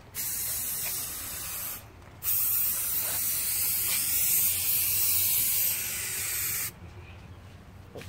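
Aerosol spray paint can spraying: a hiss of about two seconds, a brief pause, then a longer hiss of about four and a half seconds.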